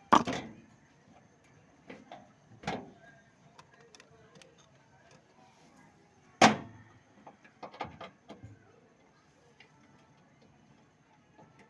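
A few sharp knocks and clanks, the loudest about six seconds in, with quieter clicks and taps after it; no steady running sound.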